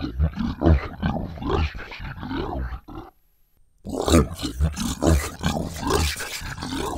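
A man's voice pitched down about 60% into a deep, growling monster voice, played twice. The first take, recorded on a Shure SM7B, has no higher tones and sounds almost underwater. About a second after it ends, the same take from the Sanken CO-100k 100 kHz microphone plays, fuller and brighter because its ultrasonic range has been squashed down into hearing.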